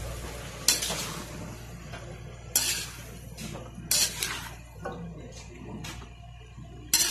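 Metal spoon scraping and clanking against a metal wok while stir-frying vegetables and chicken, with sharp clanks every second or two.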